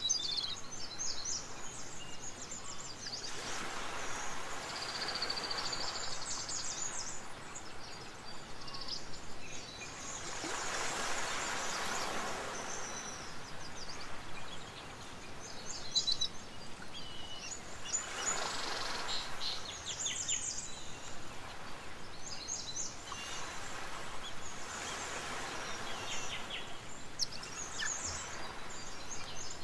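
Outdoor ambience: many short, high bird chirps over a rushing noise that swells and fades every six to eight seconds.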